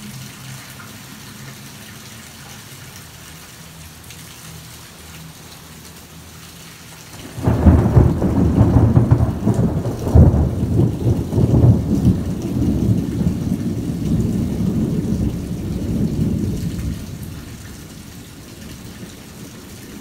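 Steady rain, then about seven seconds in a loud rumble of thunder breaks out, rolls on for about ten seconds and slowly fades.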